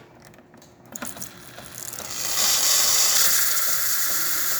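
Jura Impressa E8 espresso machine's steam wand coming on: a few faint clicks, then steam builds over about a second into a loud, steady hiss of strong steam.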